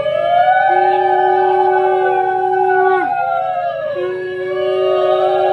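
Women ululating (Bengali ulu-dhwani) in long, wavering trills that slide up and down, with a conch shell (shankha) blown in long steady notes over them. One conch note breaks off about three seconds in and another starts about a second later, marking the turmeric-applying rite of the gaye holud.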